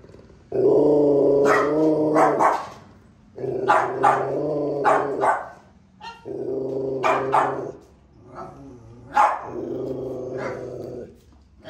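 A bully-type dog gives four long, low, drawn-out growling calls, each about two seconds, broken by several sharp barks.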